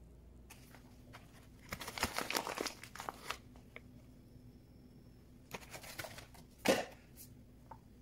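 Crinkling and rustling of something being handled, in two bouts about two and six seconds in, followed by one sharp knock, the loudest sound.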